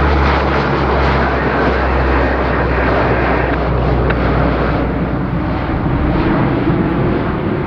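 Lockheed C-130H-30 Hercules' four Allison T56 turboprops under power in a go-around: a loud propeller drone with a steady low hum, easing slightly near the end.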